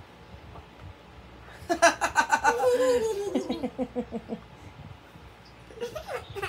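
A young girl laughing: a burst of quick giggles about two seconds in that slides down in pitch and fades over the next two seconds.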